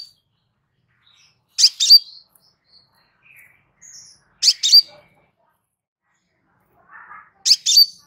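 Crimson sunbird (kolibri sepah raja) calling: three short bursts of sharp, high-pitched double chirps, spaced about three seconds apart.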